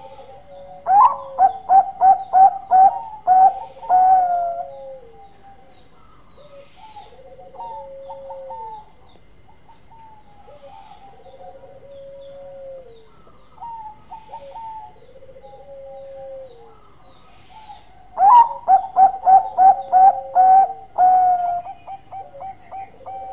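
Zebra dove (perkutut) singing: two bouts of rapid staccato cooing, each about eight quick notes after a higher opening note, one about a second in and another about eighteen seconds in, with softer drawn-out falling coos between them.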